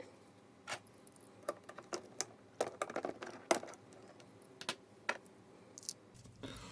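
Logitech G810 keyboard keys with Romer-G switches being pressed one at a time, about a dozen separate clicks at uneven intervals, as the switches are tried out after cleaning.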